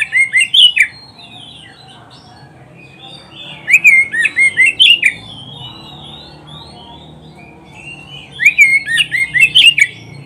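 Oriental magpie-robin (kacer) singing: three loud bursts of rapid whistled notes about four seconds apart, with softer notes between them.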